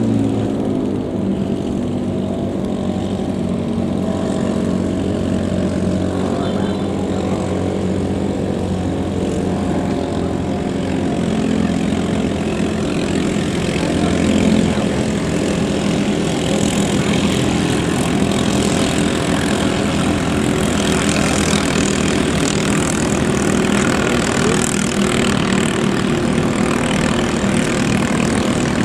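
Small long-tail racing boat engines running flat out: a loud, steady buzzing drone, with a hiss growing in over the second half.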